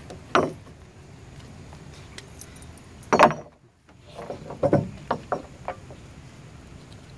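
Metal hooks and buckle of a ratchet strap clinking and knocking against wooden ramp boards as the strap is handled: a handful of sharp clinks, the loudest about three seconds in, then a quick cluster of smaller clicks.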